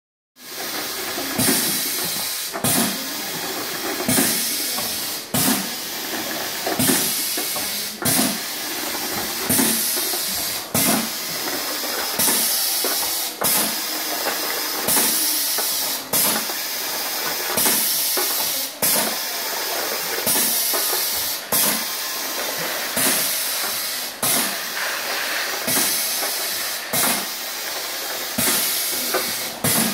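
Semi-automatic pneumatic piston filling machine cycling as it doses cream into jars: a sharp clack of the air cylinder and a rush of hissing air about every second and a half, over a constant hiss.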